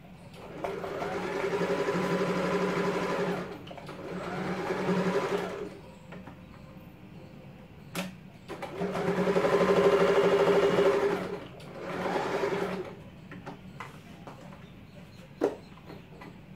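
Electric sewing machine stitching in four runs, each speeding up as it starts, with short pauses between them and a sharp click or two in the gaps. It is sewing a seam across layered cotton fabric folded around a cord.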